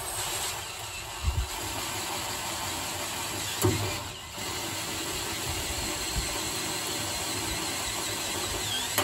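Cordless drill running a step bit through the combine's sheet-metal wall to enlarge a pilot hole: a steady grinding whir with two sharp knocks in the first four seconds and a brief pause just after.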